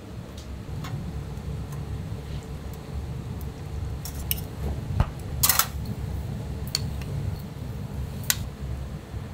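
Kitchen utensils clinking and tapping against dishes and pans in a ramen kitchen: a scatter of sharp strikes, the loudest about five and a half seconds in, over a steady low rumble.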